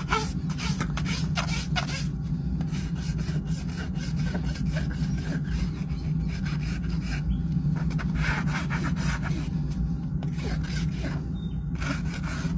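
Steel hoof rasp drawn in quick repeated strokes across a Shire horse's hoof, filing the hoof wall and sole level, over a steady low hum.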